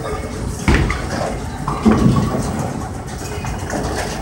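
Bowling alley noise: a steady rumble of balls rolling down the lanes, with sharp knocks about a second and two seconds in.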